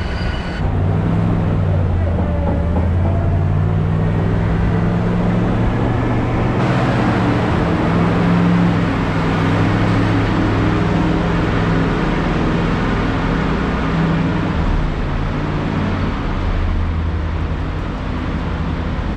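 A vehicle engine running, its pitch slowly wandering up and down. A steady hiss joins abruptly about six and a half seconds in.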